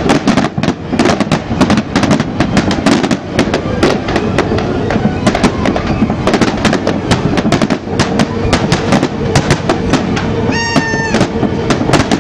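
Large fireworks display: a dense, continuous barrage of bangs and crackles from aerial shells bursting. Near the end comes a short high-pitched tone lasting about half a second.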